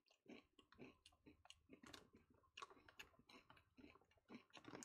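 Faint chewing of crunchy corn chips: soft, irregular small crunches and clicks.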